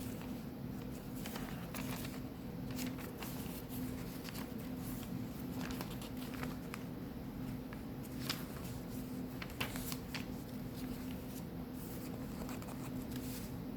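Paper pages of a handmade junk journal turning and rustling, with scattered soft crinkles and light taps as pages and loose ephemera are handled, and one sharper tap about eight seconds in. A steady low hum runs underneath.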